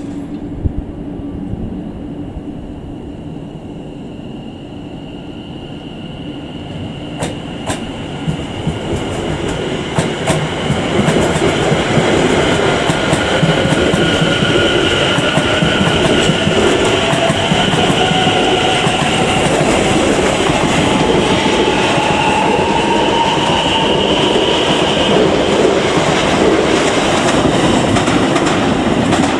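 Greater Anglia Class 720 Aventra electric multiple unit running past at close range. The wheels click over the rail joints as it draws near, and it gets loud about ten seconds in, with a steady electric whine and a second whine rising in pitch.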